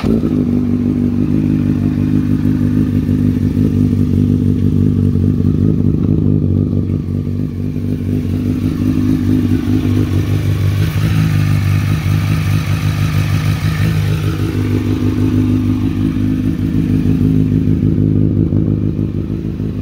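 Honda CBR motorcycle engine idling steadily just after an oil change, circulating the fresh oil before the level is checked.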